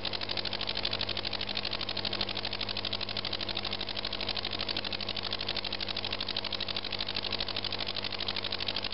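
Small brass oscillating (rocking) model engine running on compressed air from an aquarium pump at a steady speed: a rapid, even ticking, over a steady low hum.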